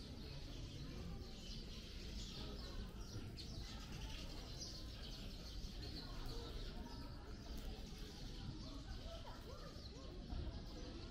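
Many small birds chirping busily in a steady overlapping chorus, over a constant low background rumble.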